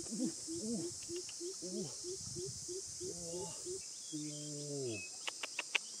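Greater coucal calling: a quick series of deep, low hoots about three a second, then a long falling croak, over a steady high hiss of insects. A few sharp clicks come near the end.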